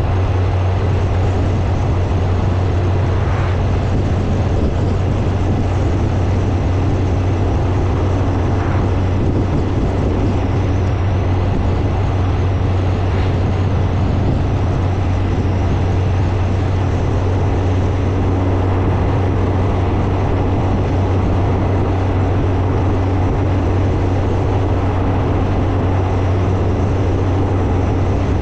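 Motorcycle under way at a steady speed: a constant low engine hum under a steady rushing noise, with no change in pitch.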